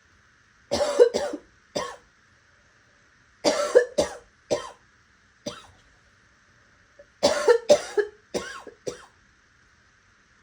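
A person coughing in three bouts of three or four harsh coughs each, with short pauses between the bouts.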